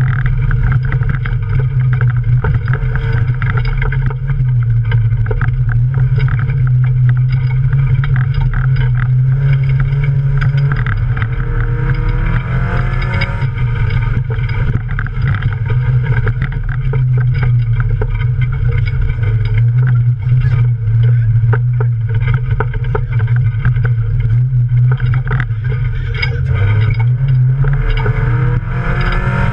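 Off-road race car's engine running hard under load, heard from inside the cabin as a loud steady drone, with frequent knocks and rattles from the car crossing rough ground. The engine pitch shifts up and down a couple of times, around the middle and again near the end.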